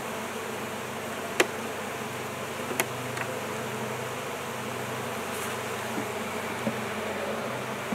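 Honey bees buzzing in a steady low hum as their hive is opened and its frames handled. Two sharp wooden knocks stand out in the first three seconds, as frames are worked loose in the hive body.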